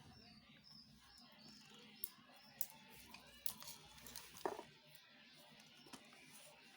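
Faint, scattered clicks and light taps of small construction-kit parts being handled, about five over several seconds. The loudest comes about four and a half seconds in, over a quiet room.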